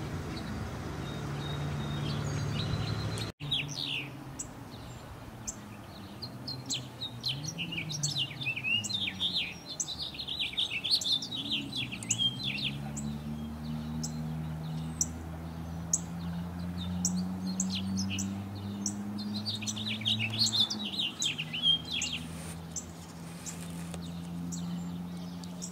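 Male house finch singing its long, rambling warble of quick jumbled notes, in two long runs from a few seconds in until near the end. A low hum that slowly rises and falls in pitch runs underneath.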